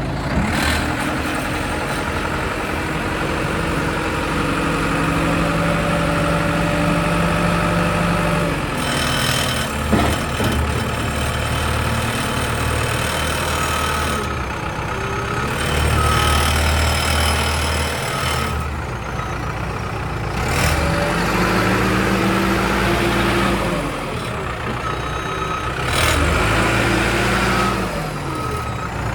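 New Holland 575E backhoe loader's diesel engine running, its speed rising and falling several times, with a sharp knock about ten seconds in.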